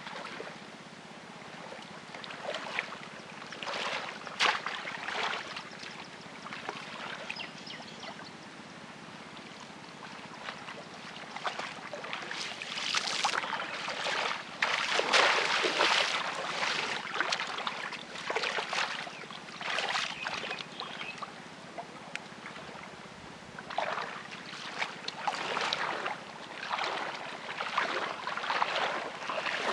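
Shallow muddy water splashing and sloshing as a person wades through it and works a woven fish trap down into it, groping inside by hand. The splashes come irregularly, heaviest about halfway through.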